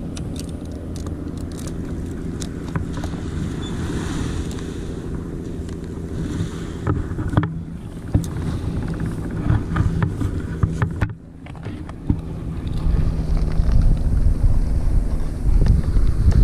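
A steady low engine drone with a constant hum. Scattered knocks and splashes come in the middle as a fish is netted at the surface, and heavy low wind rumble on the microphone takes over near the end.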